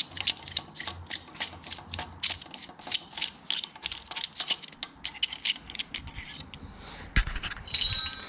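Fork spring compressor tool being turned on a motorcycle fork, its handles clicking like a ratchet at an even rate of about five clicks a second. The clicking stops about six seconds in, followed by a single knock and some handling noise near the end.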